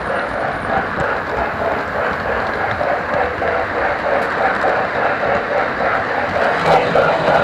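Model steam locomotive and tender running on model railroad track, heard close up from a car riding directly behind it. A steady running noise with a fast, even pulse.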